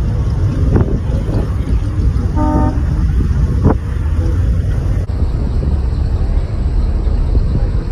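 Classic cars driving slowly past with a steady low rumble, and a short car horn toot about two and a half seconds in.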